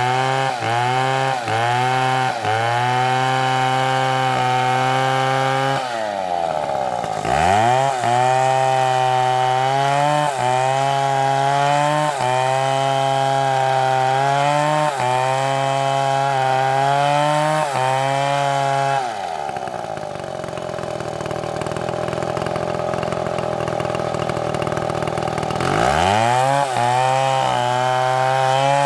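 STIHL chainsaw running at high revs and cutting wood, its engine pitch wavering as the chain bites. About seven seconds in it drops briefly and revs back up. Later the revs fall off for several seconds, then rise again near the end.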